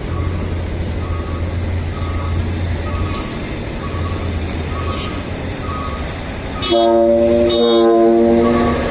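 Dump truck's multi-tone trumpet air horn sounding near the end: two loud blasts of several notes at once, the second on a different set of pitches. Before it, a low engine hum with a short electronic beep repeating about every three-quarters of a second.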